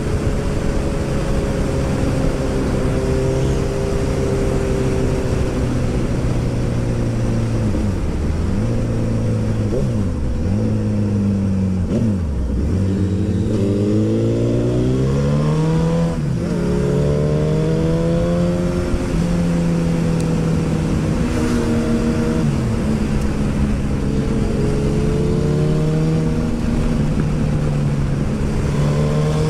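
Onboard sound of a Suzuki Hayabusa's inline-four engine under way, with wind rush. The revs dip and recover several times, then climb through a quick run of upshifts near the middle, and settle at a steady cruise for the rest.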